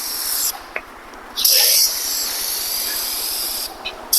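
Solvent spraying from an aerosol can onto forklift lift chains, a high hiss in sprays: it stops about half a second in, starts again with a loud burst after a second or so, runs on steadily, and breaks off briefly near the end.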